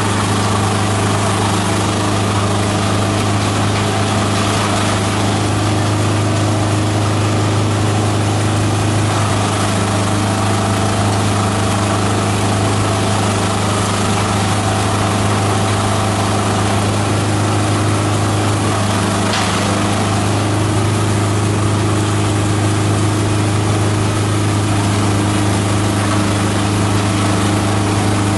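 Multi-purpose chopper-shredder machine running steadily while leafy green branches are fed in and shredded. It makes a constant loud drone with a strong low hum.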